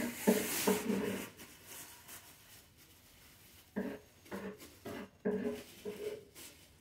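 Short pitched vocal sounds in a rhythmic series, in two spells with a quiet gap between them.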